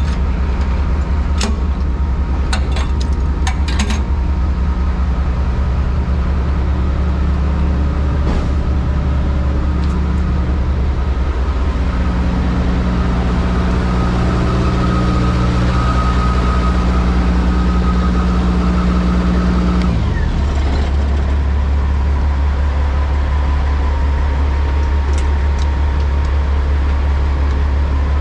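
Semi-truck's diesel engine running steadily on the road. Its note strengthens from about twelve seconds in and drops suddenly about twenty seconds in. A few sharp ticks come in the first few seconds.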